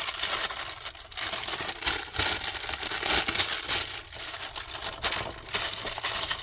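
Parchment paper crinkling and rustling as it is handled, a dense run of irregular crackles.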